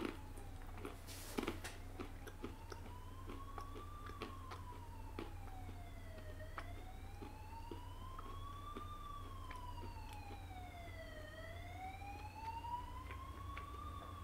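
Emergency vehicle siren in a slow wail, its pitch rising and falling about every five seconds, under a steady low hum. Scattered soft clicks, one louder about a second in.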